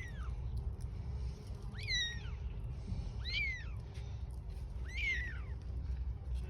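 Kittens mewing: thin, high calls that rise and fall, one fading at the start and then three more about a second and a half apart, over a steady low rumble.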